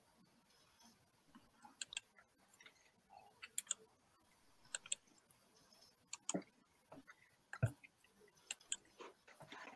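Faint, irregular clicks and small knocks, roughly one every second or so, over low background noise picked up through a video-call microphone.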